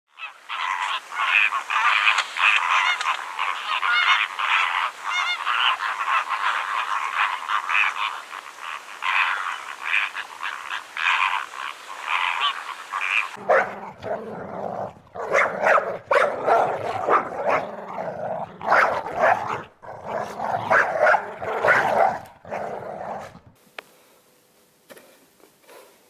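A flock of flamingos honking and calling steadily; about thirteen seconds in it cuts to a dog barking over and over for about ten seconds, which stops suddenly and leaves near silence.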